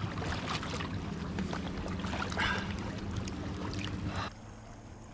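River water lapping and splashing around a landing net held in the shallows, with scattered small splashes over a steady rush of flowing water. The sound drops suddenly to a quieter hiss about four seconds in.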